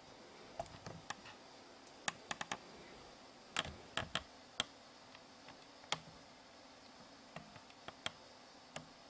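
Scattered sharp clicks and taps, some in quick runs of three or four, over a faint steady hiss.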